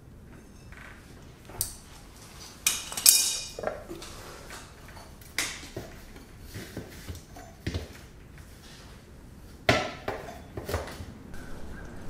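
Metal clinks and clanks as steel crucible tongs and the lid are handled at a cold, unlit propane melting furnace: a scatter of separate knocks, the loudest about three seconds in with a brief metallic ring.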